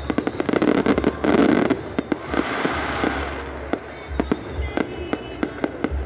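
Fireworks going off: a dense run of sharp cracks and bangs in the first two seconds, then a louder crackling burst, then scattered single cracks.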